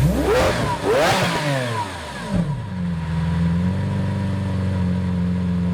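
2013 Lamborghini Aventador LP700-4's V12 engine revved once, its pitch climbing for about a second and falling back. It then settles into a steady idle.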